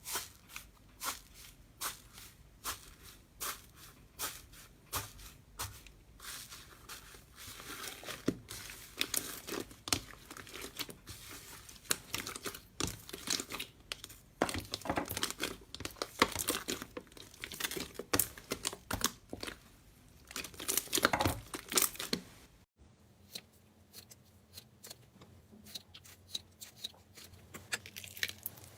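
Slime being squeezed and stretched by hand, making sharp sticky pops and crackles. The pops come a little over once a second, then build into a denser, louder run of crackling. About two thirds of the way through there is a sudden change to quieter crackling.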